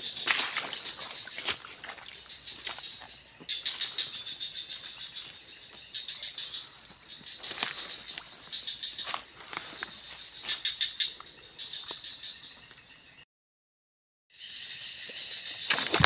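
A steady, high insect chorus in tropical swamp forest, with irregular crunches and rustles of footsteps through leaf litter and brush. About 13 seconds in the sound drops out for a moment, then a different, pulsing insect chorus follows with more handling rustle.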